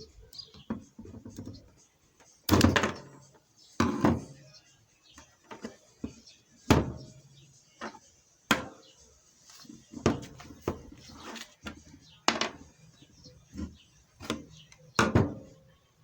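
Irregular sharp knocks and clunks of metal parts and tools being handled while a car steering rack is taken apart, roughly one every one to two seconds.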